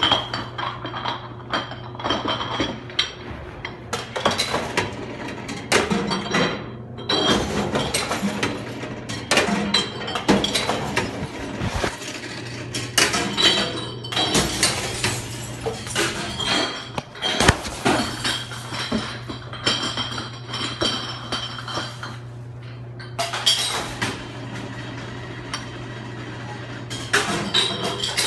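Bottle-return machine smashing returned glass bottles: a dense, irregular run of clinks and crashes over the steady hum of the machine's motor, easing off briefly twice.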